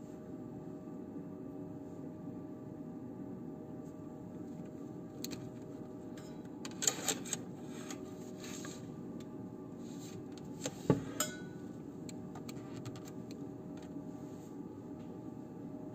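Steady indoor hum of room tone, broken by a few light clinks and knocks about seven seconds in and again about eleven seconds in.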